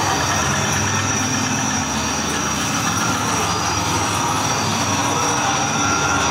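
Haunted-maze sound effects: a loud, steady, grinding, machine-like rumble that runs unbroken with no distinct strikes or revs.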